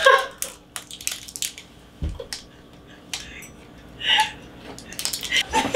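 Scattered light clicks and knocks, with short breathy vocal bursts about four seconds in and again near the end, from a woman recoiling after lime juice was squirted into her face.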